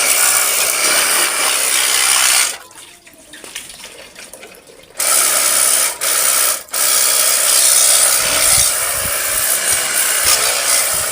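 Pressure washer spraying a water jet onto a motorcycle, a loud steady hiss with the pump running. The spray stops for about two and a half seconds a couple of seconds in, then cuts out twice briefly soon after starting again.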